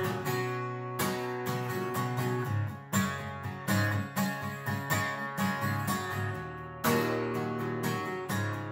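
Acoustic guitar strummed in a steady country rhythm, with harder strums at about one, three and seven seconds in.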